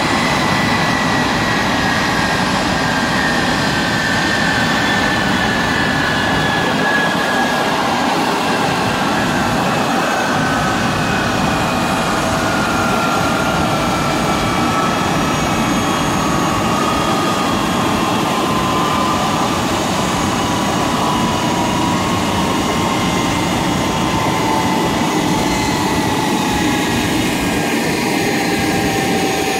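Boeing 777-300's twin jet engines running at low power: a steady loud rush with a whine that slowly falls in pitch.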